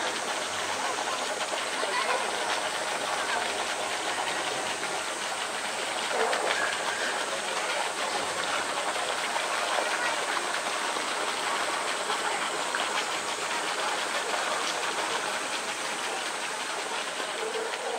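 Water pouring steadily from an outlet pipe in a concrete wall and splashing down into a pool, an even, unbroken rushing noise.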